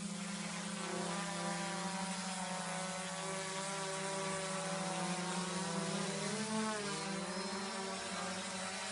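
3D-printed Dragonfly drone's propellers buzzing steadily with a constant pitch. The pitch dips briefly about six and a half seconds in, then recovers as motor speed changes.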